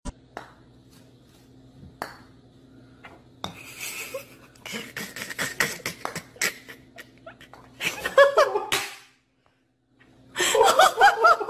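A few sharp clicks, then a person laughing in bursts, loudest in two stretches in the second half.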